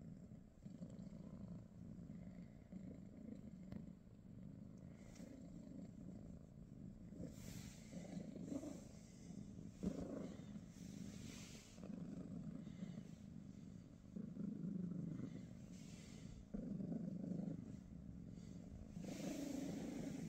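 Golden British Shorthair cat purring while being stroked, a low rumble that swells and fades every second or two with its breathing. Several short rustles of the duvet under the petting hand.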